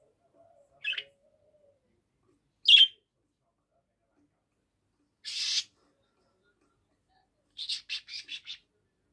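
Caged budgerigars calling in separate bursts: a short chirp about a second in, a louder chirp at about three seconds, a harsher squawk in the middle, and a quick run of about six chirps near the end.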